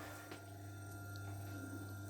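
Faint steady low electrical hum, with a couple of faint ticks.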